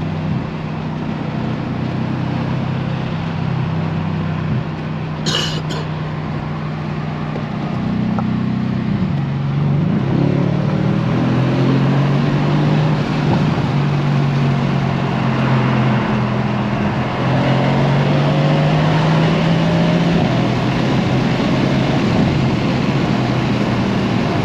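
Mercedes-AMG C63 S Coupé's 4.0-litre twin-turbo V8 without a petrol particulate filter, heard from inside the cabin with the windows open as the car drives and accelerates. The engine note rises and grows louder about nine seconds in and again around seventeen seconds, with a brief sharp sound about five seconds in.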